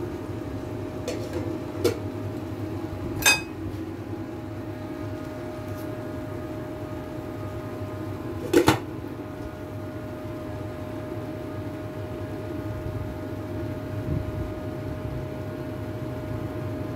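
A steady machine hum with a faint constant tone, broken by a few sharp clicks, one about two seconds in and one about three seconds in, and by a louder double knock about eight and a half seconds in.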